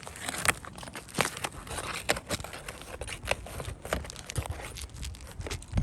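Asphalt roof shingle being pulled and worked loose by hand: an irregular run of crackling and tearing.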